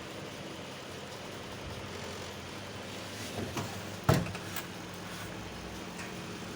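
Microwave oven running with a steady low mains hum from its cooling fan and turntable motor, now working again but not heating, drawing low current. A sharp click about four seconds in, with a few lighter ticks just before it.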